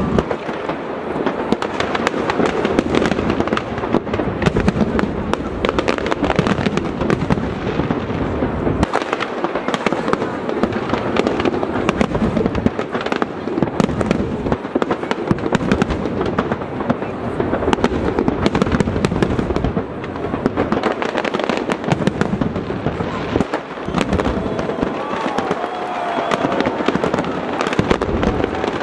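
Fireworks display: a continuous rapid barrage of bangs and crackles from aerial shells bursting.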